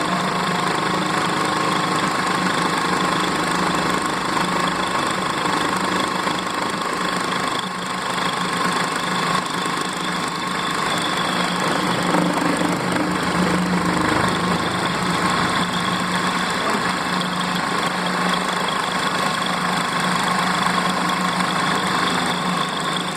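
CNC milling machine running, a steady whine over a lower hum.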